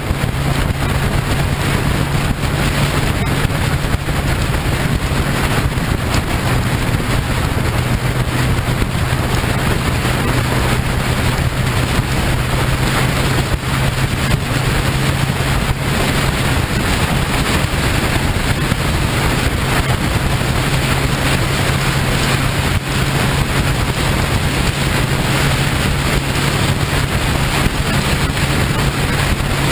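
Motorcycle cruising at steady highway speed: heavy wind rush on the mounted camera's microphone over a steady low engine drone.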